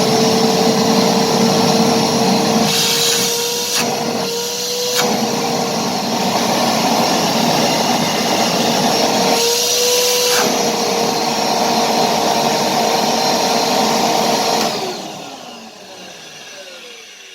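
Karcher WD 2 wet-and-dry vacuum cleaner running with a steady whine, its turbine freshly cleaned of dried putty and its motor bearings replaced; the test run is a positive result. The pitch briefly rises a couple of times, then it is switched off about 15 seconds in and the motor winds down with a falling pitch.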